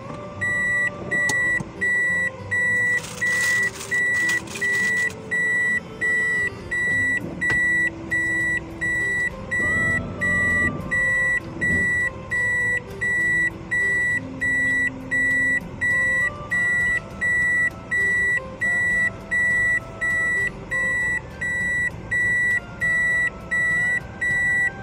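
A car's electronic warning beeper sounding one steady high beep over and over at an even pace, about four beeps every three seconds.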